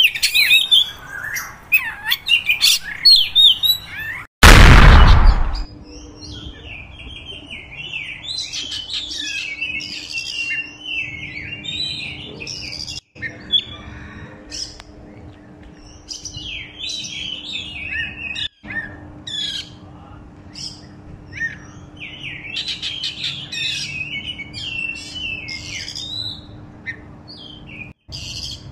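Oriental magpie-robin (kacer) singing: a run of varied high whistled and chattering phrases. About four seconds in, a loud burst of noise lasting about a second cuts across it. After that a faint steady hum lies under the song.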